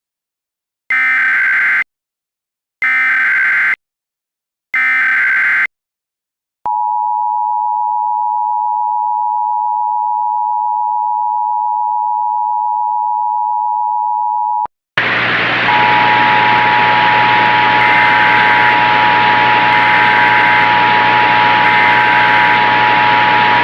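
Emergency Alert System test alert: the SAME data header sounds as three short buzzy bursts, then the two-tone attention signal (853 and 960 Hz) holds steady for about eight seconds. From about fifteen seconds in, a loud hiss of noise comes in, with the two tones still running beneath it.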